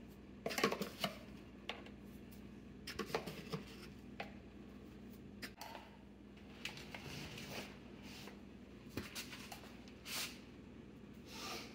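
Plastic spice jars being shaken and tapped, with a scoop scraping seasoning out: scattered soft clicks, taps and rattles at uneven intervals.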